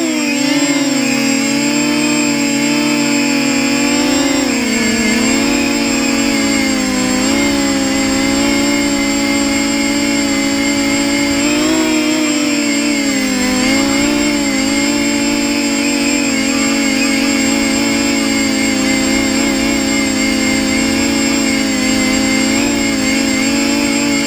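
Versacopter 280 quadcopter's electric motors and propellers whining in flight, heard from the aircraft itself. The steady buzzing pitch dips and rises every few seconds as the throttle changes.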